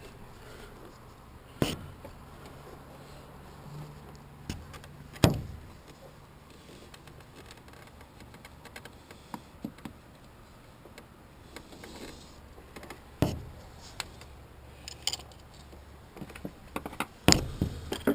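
Metal tools and parts being handled: scattered clinks and ticks with four sharper knocks spread through, over a low steady hum.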